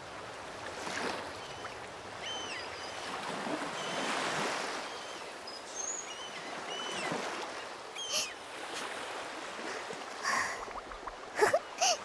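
Sea waves washing in slow swells, with small birds chirping over them. Near the end there are a few short, light pops.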